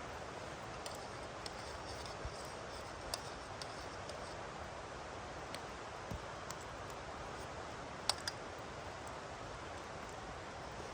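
Campfire burning with a steady hiss and scattered small crackles and pops, a pot of water on it nearly at the boil; two sharper pops about eight seconds in.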